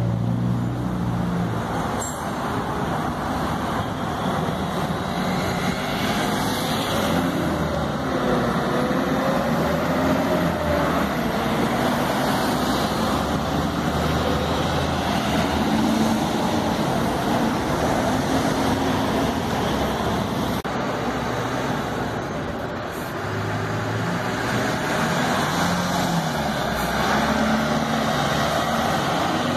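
Street traffic: diesel city buses and cars driving past, engines running with tyre and road noise, and an engine's pitch rising and falling about seven seconds in.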